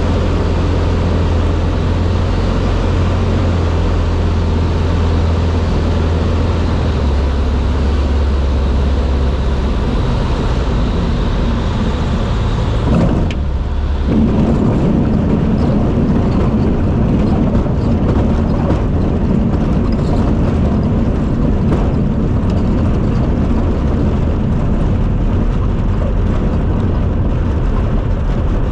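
Light aircraft's engine and propeller running steadily, heard inside the cockpit during landing. About 13 seconds in, the sound briefly breaks, and after that a rough rumble of the wheels rolling over a dirt strip joins the engine.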